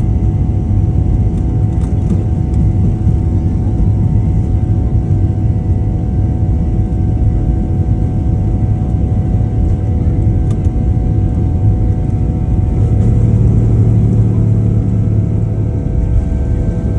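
Airliner cabin noise on the takeoff roll: the jet engines running at high thrust with a deep, steady rumble from the wheels on the runway and a few steady whining tones above it, swelling slightly a little before the end.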